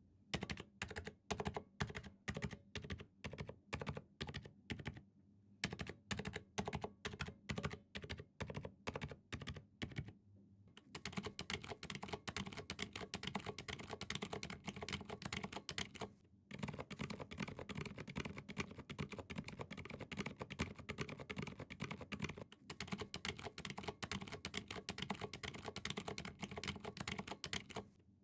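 Mechanical keyboard with Zealpc Zilent v2 silent tactile switches being typed on. Keys are pressed one at a time at about three a second, with two short pauses, then about ten seconds in the pace picks up to fast continuous typing.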